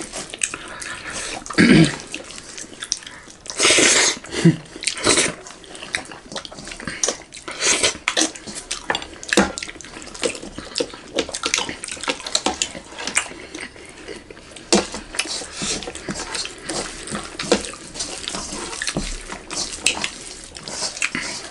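Close-miked eating sounds: wet, irregular chewing and lip smacking as mouthfuls of rice are eaten by hand, mixed with the squish of fingers working rice in a metal wok. A few louder smacks stand out now and then.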